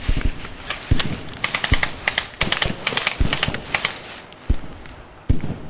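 Clusters of rapid, irregular clicks and crackles with dull thumps among them during an airsoft skirmish, thinning out about four seconds in.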